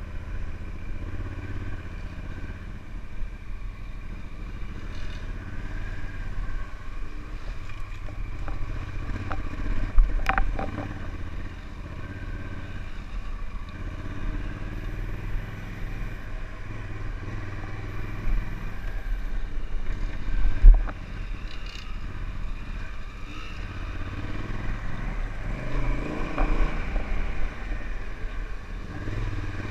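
Honda Africa Twin motorcycle engine running steadily as it is ridden along a rough dirt trail. Two sharp knocks stand out, one about ten seconds in and one about twenty seconds in.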